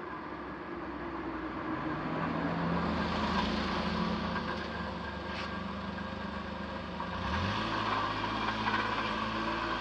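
Vehicle hum at a railway level crossing, steady and pitched, growing louder as a JR Saikyō Line train approaches, with a step up in pitch about seven seconds in.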